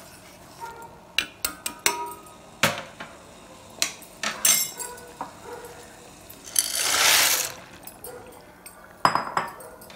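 A metal spoon clinking and knocking against a stainless-steel pot of boiling water, a string of sharp clinks. About seven seconds in, a rush of noise lasting about a second as dry macaroni is tipped into the water, then a few more clinks near the end.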